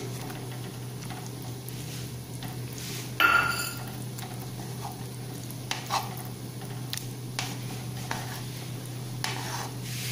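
A steel spatula stirring and scraping thickening milk and cream in a metal kadhai, with scattered scrapes against the pan and one sharper metallic clink about three seconds in. The milk is being reduced on the gas and kept moving so it does not catch at the bottom.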